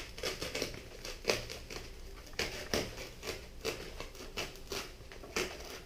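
Pocket knife slicing through a foam pool noodle at a diagonal: an irregular series of short cutting strokes, a few each second.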